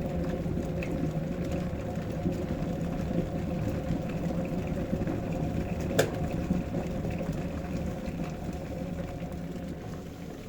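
Grundig electric kettle with the water at a full boil, a steady bubbling hiss. A single sharp click comes about six seconds in, the kettle's automatic switch cutting off, and the boiling noise then slowly fades toward the end.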